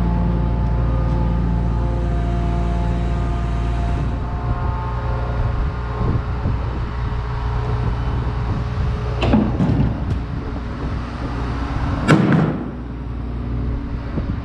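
Diesel engine of a combine running steadily at a fairly constant speed. Two short sharp metallic sounds cut through it, about nine and twelve seconds in, the second the louder.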